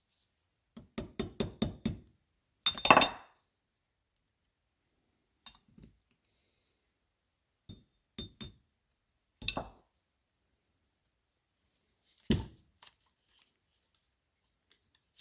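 Light metal-on-metal tapping: a pop rivet used as a punch is tapped to drive out the pin on the Honda N600 carburetor. A quick run of about seven taps comes about a second in, then one harder knock, then scattered single knocks and clinks.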